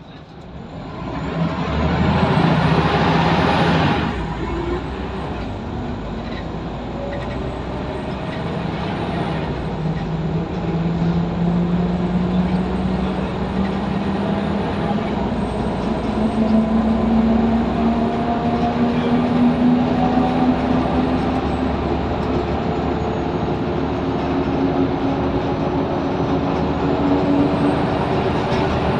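Scania L94UB single-decker bus heard from inside the cabin, its rear-mounted 9-litre five-cylinder diesel pulling with a slowly rising note. The note drops back about two-thirds of the way through as the gearbox changes up, then climbs again. A loud rush of noise lasts for the first few seconds.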